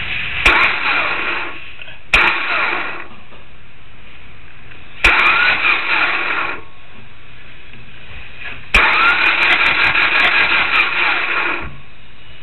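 Four bursts of mechanical whirring, each starting with a sharp click. The first three are short, and the last runs about three seconds.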